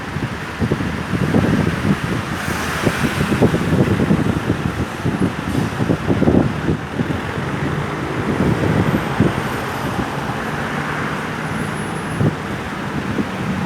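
Road traffic noise: vehicles passing with a gusty, uneven rumble, and no siren sounding.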